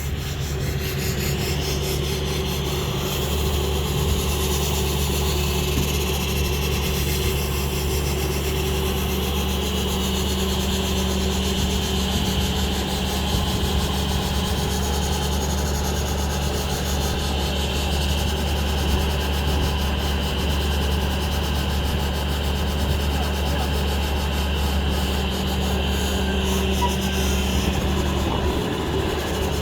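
Steady mechanical hum with a rough rubbing, rasping noise running over it.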